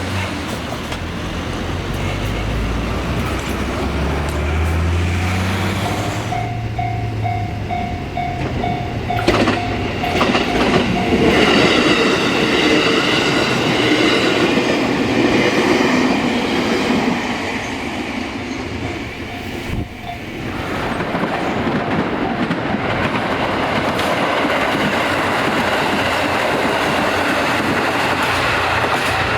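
Trains running on the rails, wheels clattering over rail joints. The sound changes abruptly twice, and a repeated steady tone sounds for a few seconds about six seconds in.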